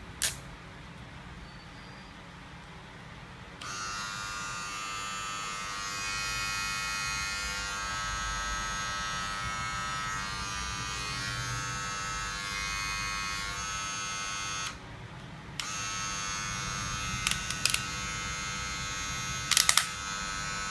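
Philips HC3418 cordless hair clipper switched on, its motor and blades running with a steady buzz for about eleven seconds. It stops for about a second, then starts again and keeps running. A click just after the start, and a few sharp clicks near the end.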